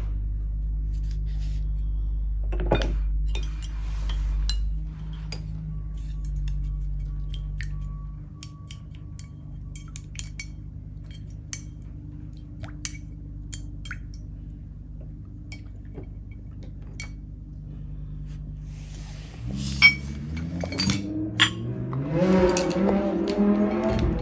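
Small ceramic paint dishes clinking now and then against a brush and each other as paint is mixed, a scatter of sharp light clinks. Background music comes in near the end.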